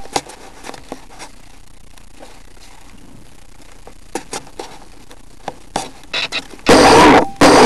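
Faint steady hiss with a few light handling clicks, then near the end two short, very loud bursts from the electric motor of a Multiplex Funjet Ultra model jet being throttled up.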